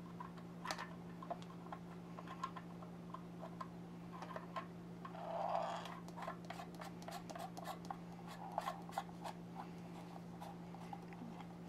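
Plastic parts of a Reef Octopus Regal protein skimmer being handled and fitted together by hand: the acrylic bubble chamber and small plastic screws and fittings on the pump, giving a run of light clicks and taps with a short scuff about five seconds in.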